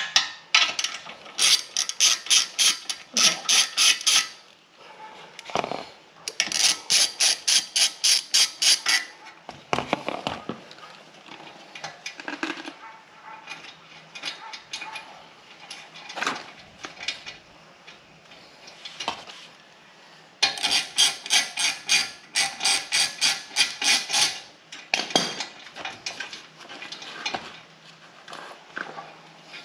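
Socket ratchet wrench clicking rapidly in three runs, with scattered tool knocks between, as 12 mm exhaust mounting bolts are loosened.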